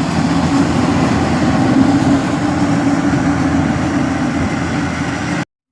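Rice harvester engine running steadily, a loud even drone with a strong low hum, cutting off abruptly near the end.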